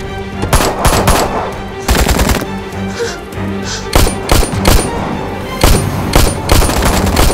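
Gunfire exchange: several bursts of rapid shots in quick succession, pistol and rifle fire, over a tense music score.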